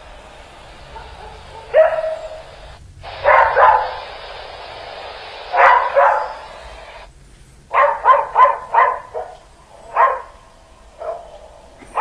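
Dogs barking in scattered single barks and short pairs, with a quick run of five or six barks about two thirds of the way through.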